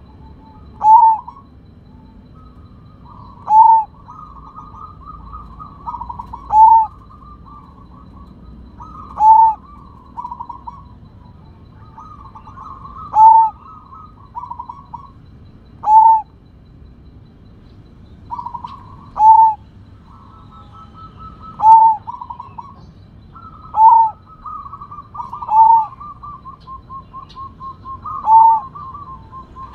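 Zebra dove (perkutut) cooing: a loud, short coo repeated about every two to three seconds, eleven in all, with quieter rapid stuttering trills between many of them.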